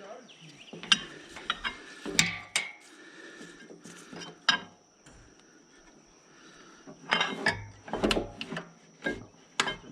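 Metal tools and parts being handled: scattered sharp clanks and clicks with quiet gaps between, and a cluster of heavier knocks near the end.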